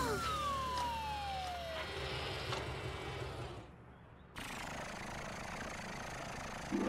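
Cartoon sound effects for a fire truck's ladder folding down. A long falling tone opens, then a low mechanical hum. The sound cuts out briefly a little past halfway and then a steady hiss-like hum carries on.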